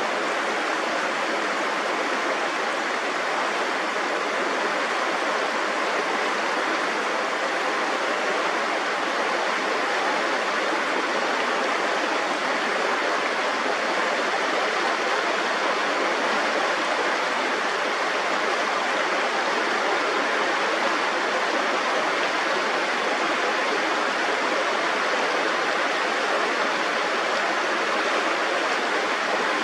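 Running water, a stream or small falls, rushing steadily as an even hiss without change.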